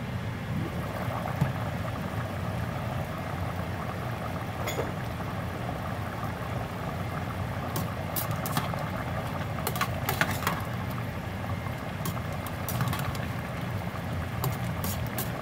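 Pot of pork mechado stew in tomato sauce bubbling steadily at a simmer. In the second half a slotted spoon clinks and scrapes against the stainless steel pot as the stew is stirred.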